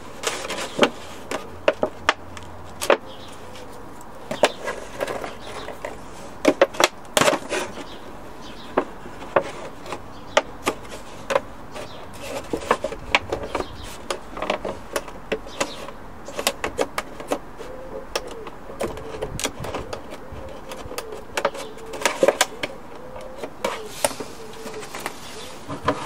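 Scissors cutting through a thin plastic milk bottle: an irregular run of sharp snips and crackles of the plastic as feeding holes are cut out.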